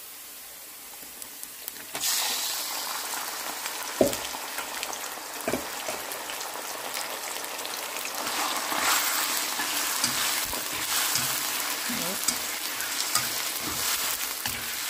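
Sliced raw chicken breast going into hot oil with shallots and garlic in a nonstick pan: a loud sizzle breaks out suddenly about two seconds in and keeps going as the chicken is stirred with chopsticks, with a couple of sharp knocks against the pan.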